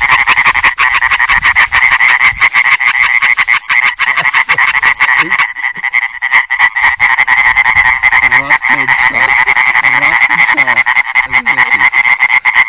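European tree frog calling, a fast, continuous string of rasping pulses, with a brief break about halfway through.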